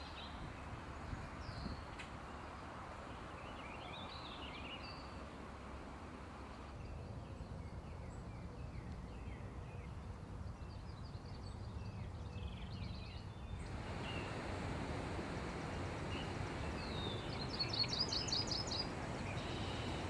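Small songbirds chirping and singing against a steady low background rumble. Faint scattered high chirps come through, and a short trill of rapid repeated high notes near the end is the loudest bird sound.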